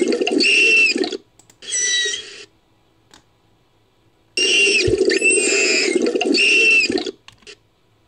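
Made-up dugong call built from manatee recordings: high squeaky chirps and whistles over a low rushing, watery noise. It comes in three bursts: one ending about a second in, a short one around two seconds, and a longer one from about four and a half to seven seconds.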